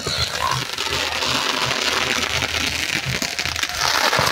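Firework fountains on a burning pyrotechnic bull frame spraying sparks: a steady, dense hissing crackle.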